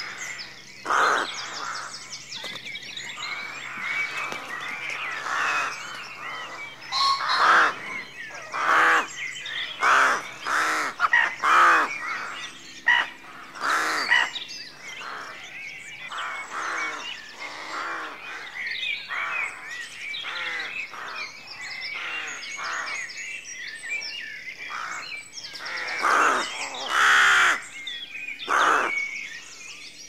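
A rook colony calling: many rooks cawing in irregular bunches, loudest and thickest between about seven and fourteen seconds in and again near the end. Under them runs continuous chirping of smaller birds.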